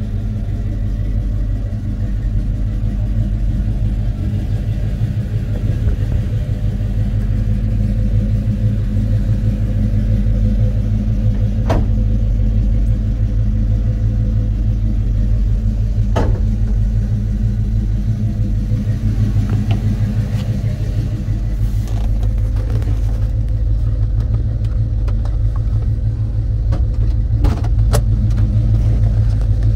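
A Pontiac Trans Am's performance crate engine idling steadily, a constant low rumble that carries into the cabin. A few sharp clicks stand out over it, about twelve seconds in, again about four seconds later, and twice near the end.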